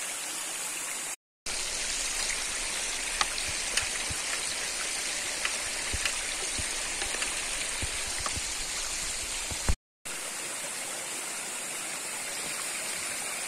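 Stream water rushing steadily, with scattered small splashes and drips. The sound cuts out completely twice for a moment, about a second in and near ten seconds, like edits.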